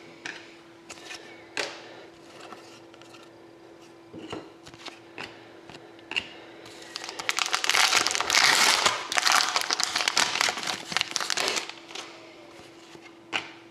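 Plastic wrapping crinkling in the hands for about five seconds in the middle, with light taps and clicks of trading cards being handled before and after. A faint steady hum sits underneath.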